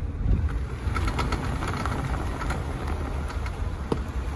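Dacia Sandero running and rolling with a failing CV joint clicking over a low engine rumble. The clicks are irregular and fairly faint, and the joint sounds horrible: it is worn out and needs replacing.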